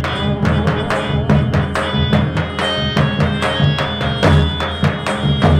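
Live Rajasthani folk music: a hand drum plays a quick, even beat of about four strokes a second over a steady harmonium melody, with no singing.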